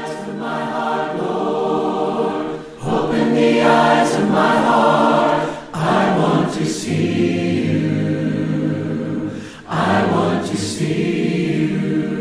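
A choir singing slow, sustained phrases, with a brief break between phrases three times.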